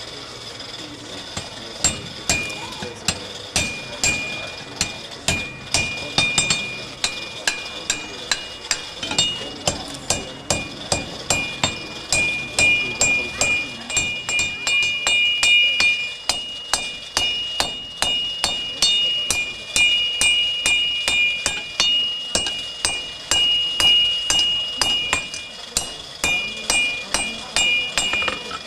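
Blacksmith's hammer striking hot iron on an anvil, starting about two seconds in and keeping up a steady beat of about two blows a second. Each blow is followed by a bright metallic ring from the anvil.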